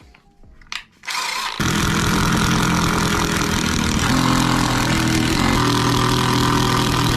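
Power drill driving screws into a wooden workbench to fix a bike repair stand down. The motor starts about a second in and runs steadily, its pitch shifting slightly as the load changes.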